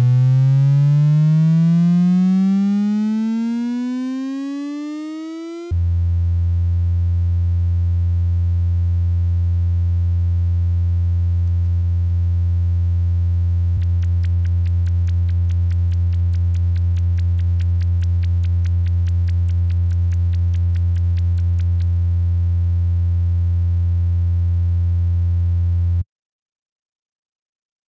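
Electronic tones: a pitched tone with overtones glides steadily upward while fading for about six seconds, then is suddenly replaced by a steady low tone that holds for about twenty seconds and cuts off abruptly near the end.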